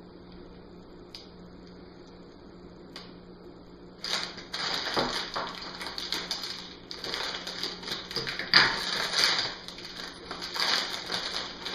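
Plastic bags of Lego bricks crinkling and clattering as they are cut open with scissors and handled, starting about four seconds in after two faint clicks.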